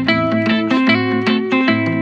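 Background music: a run of plucked guitar notes, several a second, over a steady low bass line.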